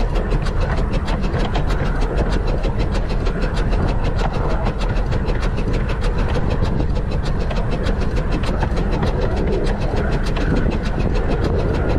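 15-inch-gauge steam locomotive River Mite running along the line at a steady pace: a continuous rumble with a fast, even beat of about five a second.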